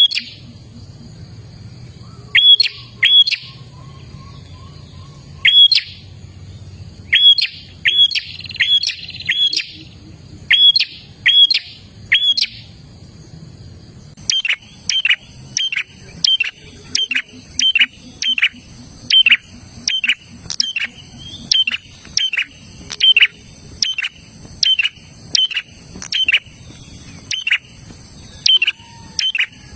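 Prinia (prenjak) singing loud, sharp, sharply falling notes: in twos and threes at first, then a fast, even run of notes from about halfway through. A steady high whine joins behind them at that point.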